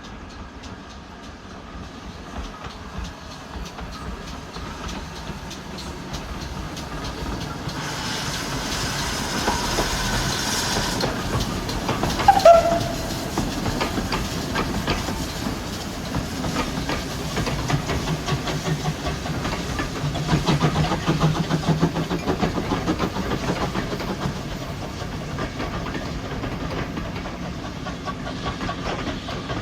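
Train running on the rails, its wheels clicking rhythmically as it goes, growing louder. A hiss comes in about eight seconds in, and a short, sharp sound that falls in pitch, the loudest moment, follows a few seconds later.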